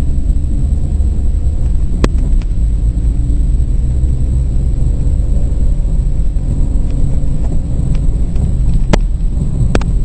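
Steady low rumble of a car's engine and tyres heard from inside the moving car's cabin. A few sharp clicks or knocks come through, about two seconds in and twice near the end.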